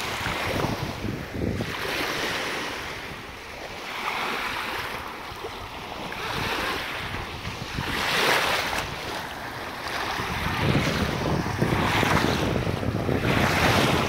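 Small waves breaking and washing up onto a pebbly shore, surging every second or two, with wind buffeting the microphone. The wind rumble grows stronger in the last few seconds.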